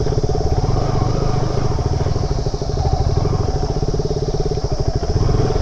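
Single-cylinder sport motorcycle engine running steadily, its firing pulses making an even, rapid beat with no change in revs.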